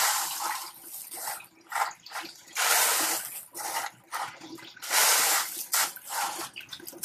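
Wet expanded clay pebbles (hydroton grow media) clattering and grinding against each other as hands push and pile them around a plant's root ball, in short irregular scrapes about every second.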